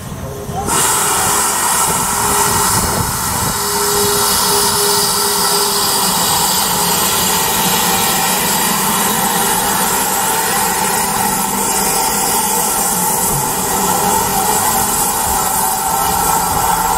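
GWR 4500-class small prairie tank locomotive 4555 letting off steam as it passes: a loud, steady hiss with several steady tones in it, starting suddenly just under a second in.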